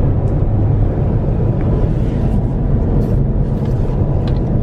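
Steady low rumble of road and engine noise inside the cabin of a car driving along a motorway, with a faint steady whine above it.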